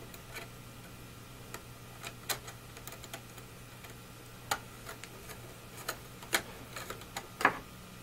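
Scattered light clicks and ticks of a screwdriver working the captive screws of an iMac's aluminium RAM access door, over a faint steady hum.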